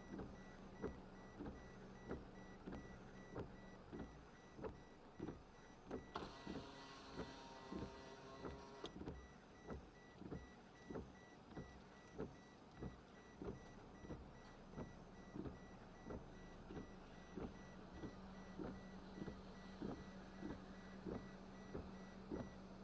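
Inside a moving car: a faint steady low hum with a regular tick about one and a half times a second, and a brief hiss about six seconds in that lasts about three seconds.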